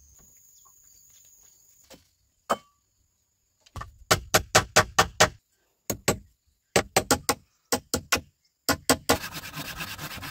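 Insects trill steadily for about two seconds. Then come sharp blows on wood in quick runs of two to eight, about four or five a second, as the slats of a wooden goat barn are fixed in place. Near the end a rough rasping scrape on wood takes over.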